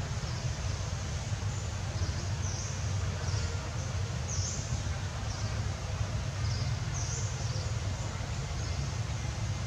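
Outdoor ambience: a steady low rumble with short, high-pitched chirps recurring every second or so.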